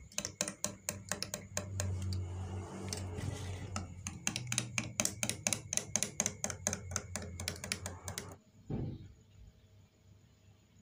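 Metal teaspoon stirring drinks in glass mugs, clinking rapidly against the glass several times a second; the clinking stops suddenly about eight seconds in.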